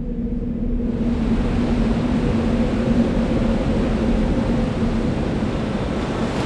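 A steady rumbling noise with a low hum underneath. It swells in over about the first second and then holds.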